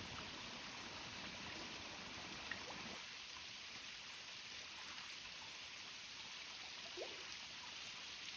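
Faint, steady running water, trickling. A brief faint squeak comes about seven seconds in.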